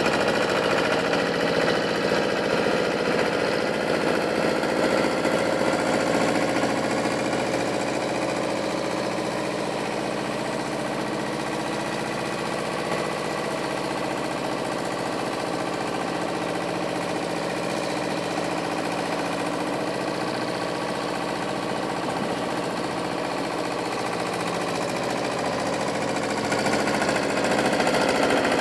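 Farm diesel engine running steadily with a clattering note: a small O&K wheel loader working manure. It is louder at the start and again near the end, when the loader is close, and a little quieter in between.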